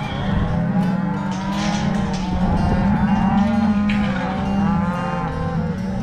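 A herd of cattle mooing, many calls overlapping one another without a break.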